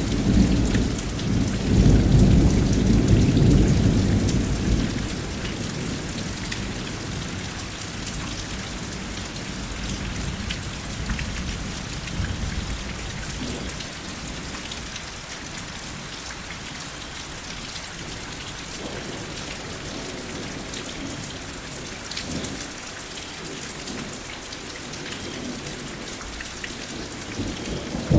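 Steady rain with a low rumble of thunder that is loud for the first few seconds and then dies away, leaving the rain alone; a new thunder roll starts at the very end.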